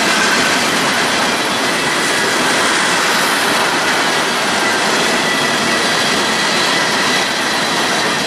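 Freight train cars, covered hoppers and tank cars, rolling past close by: a steady, loud rumble and rattle of steel wheels on the rails, with a faint steady high tone above it.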